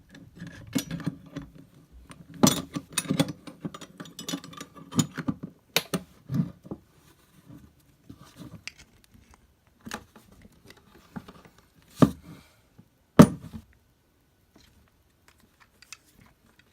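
Metal wrenches clinking, scraping and clanking against a padlock's shackle and body as they are fitted and levered to force it open. A dense run of clicks and rattles thins out into a few sharp single knocks, then it goes quiet near the end.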